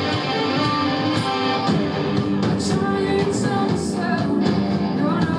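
Live rock music played by a band: guitar with a voice singing over it.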